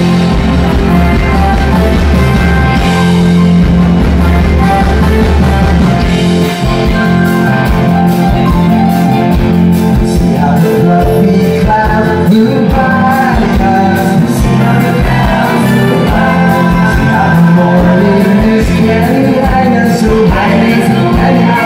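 Live rock band playing loud and amplified, electric guitars and keyboard over a steady beat, with singers' voices.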